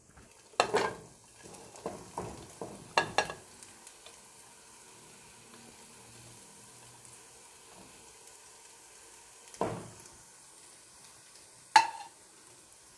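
Chicken strips sizzling quietly in a pot over a low flame while julienned carrot is dropped in by hand. A few sharp clatters come in the first three seconds and again near the end, the loudest about a second before the end.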